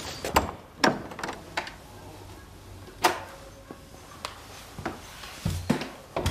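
A house's front door being opened: scattered small knocks and clicks, with one sharp latch-like click about three seconds in.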